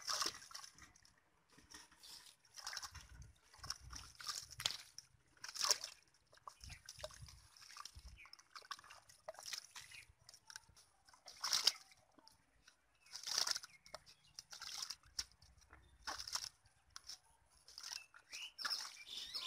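Bare hands scooping and slapping wet mud and water in a shallow hole, giving irregular sloshes and splashes with short pauses between them.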